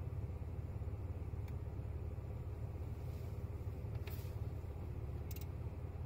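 2008 Saab 9-3 Aero's 2.8-litre turbo V6 idling, a steady low rumble heard from inside the cabin; the owner suspects a slight misfire at idle. A few faint clicks come over it.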